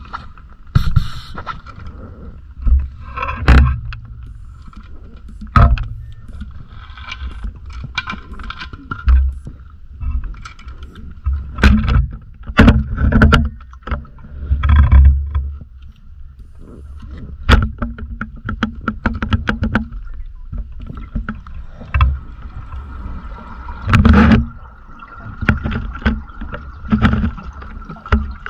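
Muffled underwater noise of diving gear: irregular knocks, bumps and short gurgling rushes, with loud clusters around a third and halfway through and again near the end, over a faint steady high whine.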